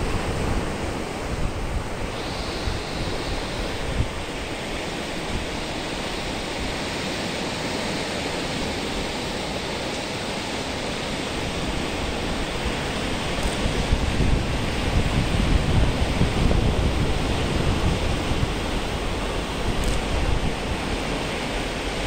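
Sea waves breaking and washing over a rocky shore, a steady rushing surf noise, with wind rumbling on the microphone that grows heavier in the second half.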